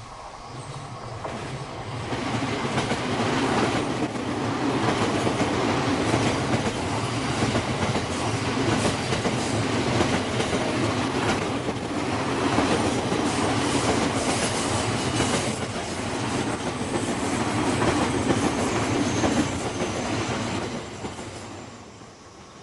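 A JR Tokaido Main Line train passes on a curve, its wheels clacking over the rail joints. The sound builds over the first few seconds, holds steady, and fades near the end. A faint high wheel squeal is heard on the curve partway through.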